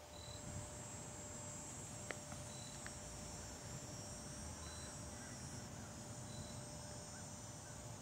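Faint, steady high-pitched buzzing of insects in the trees, with a short high note repeating about every two seconds, over a low rumble on the microphone; a single sharp click about two seconds in.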